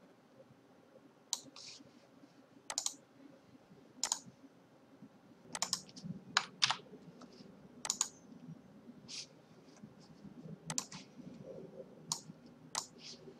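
Computer mouse buttons clicking, about a dozen sharp, faint clicks at irregular intervals, some in quick pairs, as items are selected and dragged in a design program.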